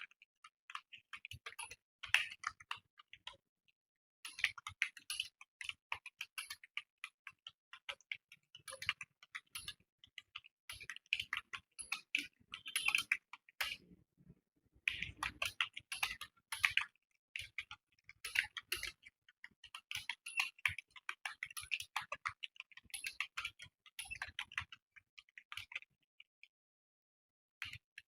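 Computer keyboard being typed on fast, a rapid run of key clicks broken by brief pauses of about a second, three times.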